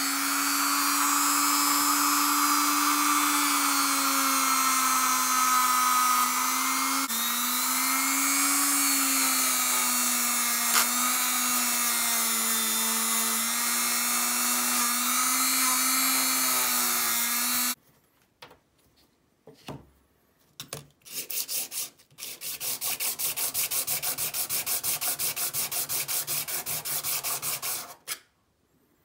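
A handheld rotary tool runs steadily with a small wheel pressed against the steel comb plate of an old manual hair clipper, cleaning the metal; its whine dips and wavers a little under pressure. It cuts off abruptly a little over halfway through. After a few light handling sounds, a clipper blade is rubbed back and forth on a sanding block in quick, even strokes.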